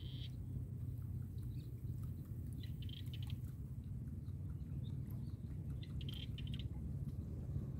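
Outdoor ambience: a steady low rumble with a few clusters of short, faint high chirps, right at the start, about three seconds in and about six seconds in.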